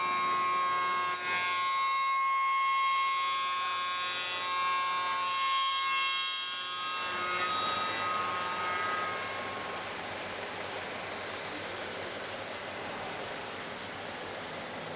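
Five-axis CNC wood router's spindle running as it machines a curved wooden chair part: a steady high whine with a hiss of cutting. The whine drops away about halfway through, leaving a steady hiss.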